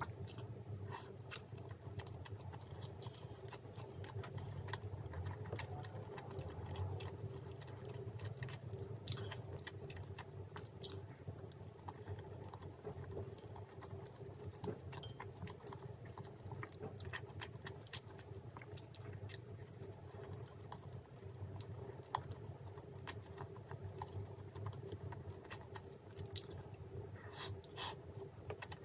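Close-miked chewing of spicy mala tteokbokki, rice cakes and noodles, with small scattered clicks of a spoon and chopsticks in the bowl over a steady low hum.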